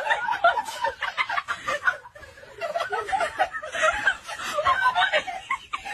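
A person laughing, in quick, choppy snickers and chuckles, with a short lull about two seconds in.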